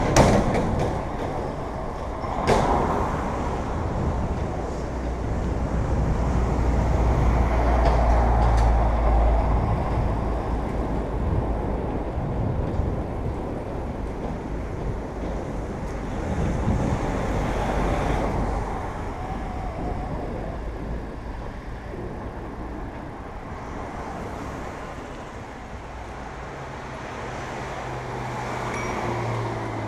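Road traffic going past alongside, a truck among it: a steady rumble of road noise that swells twice as vehicles pass. There are a couple of sharp knocks in the first few seconds.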